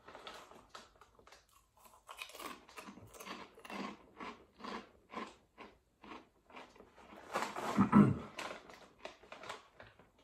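Close-up chewing of crunchy Cofresh Chilli Cheese Grills potato snacks: a run of crisp crunches, about two to three a second, loudest near the end.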